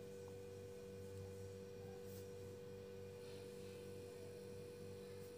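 Faint steady hum made of a few constant tones: electrical hum in quiet room tone.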